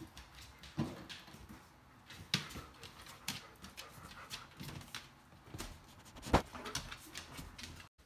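Claws and paws of a black Labrador clicking and tapping on a tile floor as she walks slowly, days after TPLO knee surgery, mixed with a person's footsteps in slide sandals. The taps come at an uneven pace, the loudest knock about six seconds in, and the sound cuts off briefly near the end.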